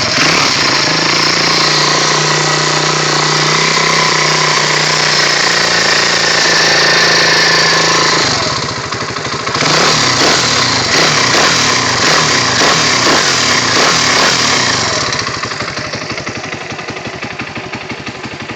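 YCF 125 pit bike's single-cylinder four-stroke engine running, held steady for about eight seconds, then the revs drop and it runs with a pulsing beat, getting quieter toward the end. It carries a clinking noise from the bottom end that the owner suspects is his clutch, though the engine otherwise runs normally.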